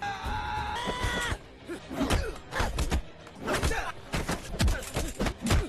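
Movie fight-scene audio: a man's long held shout for about the first second and a half, then a quick run of thumps, slams and blows with short grunts as bodies hit each other and crash into furniture.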